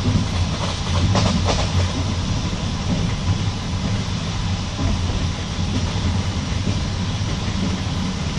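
Passenger train carriage heard from inside, wheels rolling on the rails with a steady rumble and a few short clacks in the first two seconds.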